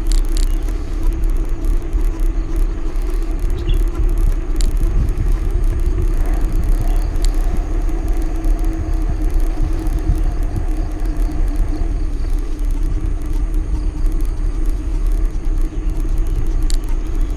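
Steady low rumble of a moving road vehicle, with a constant engine hum and a few faint ticks.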